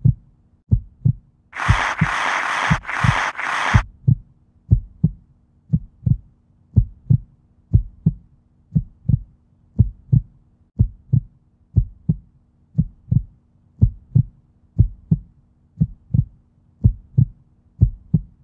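Heartbeat sound effect: steady paired lub-dub thumps at about one beat a second, over a low steady hum. Near the start a hissing noise runs for about two seconds.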